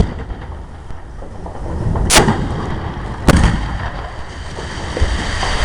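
Fireworks shells bursting overhead: two loud bangs about a second apart, about two and three seconds in, with a rolling, echoing rumble around them.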